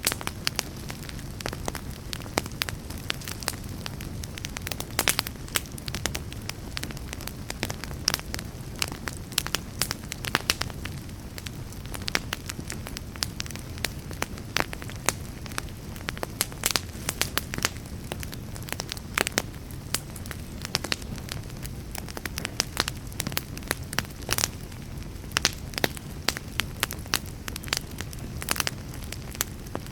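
Wood fire burning in a fireplace, crackling with frequent sharp pops over the low steady rush of the flames.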